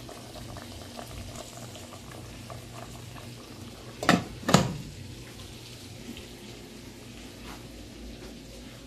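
A pot of sweet potatoes boiling on the stove, a steady bubbling hiss. About four seconds in there are two sharp clanks close together.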